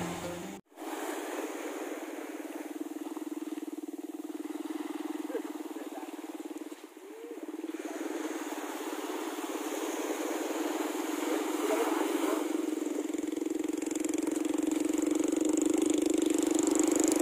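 A motor engine running steadily, a constant hum that grows a little louder toward the end. Guitar music cuts off in the first second.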